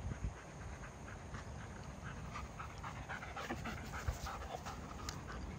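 German Shepherd panting quickly around a tennis ball held in its mouth, the breaths becoming clear about two seconds in and growing louder as the dog comes close.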